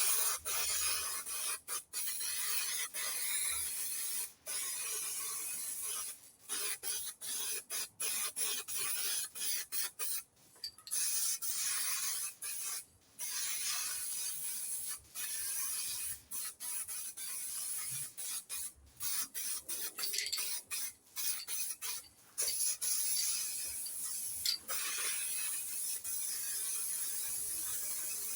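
Aerosol can of grey primer spraying in repeated short bursts: a hiss cut by many brief pauses.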